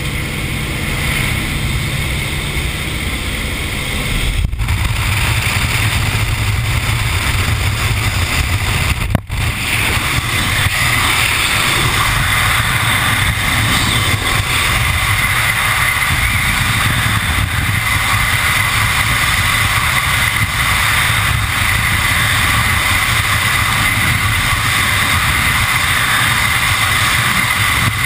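Steady noise of the aircraft cabin beside the open door, then, after two brief dropouts, the loud, steady rush of freefall wind across the camera microphone.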